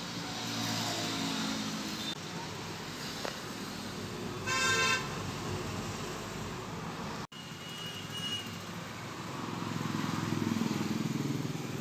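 Background road traffic, with a vehicle horn tooting once for about half a second near the middle; a passing vehicle swells louder near the end.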